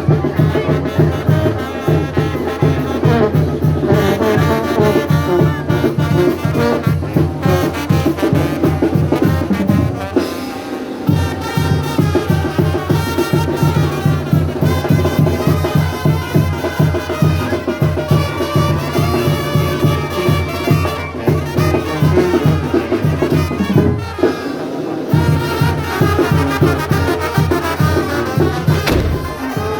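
Latin brass music with trumpets and trombones over a steady beat.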